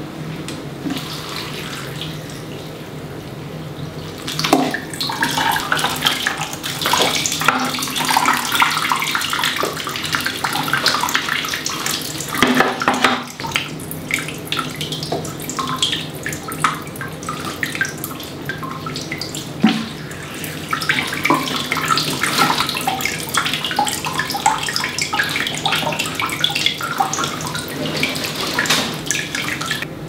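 Water pouring from a plastic watering can into potted houseplants, splashing and trickling onto soil and leaves. It gets louder about four seconds in, over a steady low hum.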